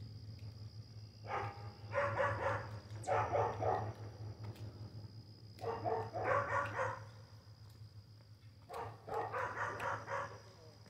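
Dog barking in four bouts of a few barks each, with short pauses between them.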